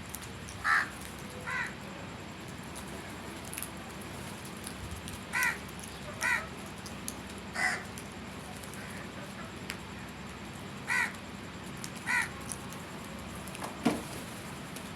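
Crow cawing: about seven short, harsh caws, often two close together, with pauses of a few seconds between them, and a lower call near the end.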